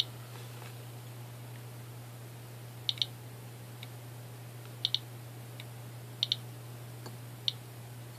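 Eberline E140 Geiger counter clicking irregularly, a dozen or so clicks with several in quick pairs, as it registers counts from uranium-doped Vaseline glass. A faint steady low hum lies underneath.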